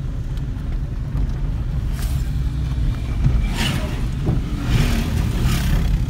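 A car driving over a rough unpaved dirt road, heard from inside the cabin: a steady low rumble of engine and tyres, with three short hissing rushes in the second half.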